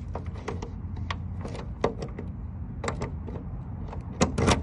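A key being worked in a truck compartment's lock cylinder: a run of small sharp metallic clicks and scrapes, with a louder cluster of clicks near the end.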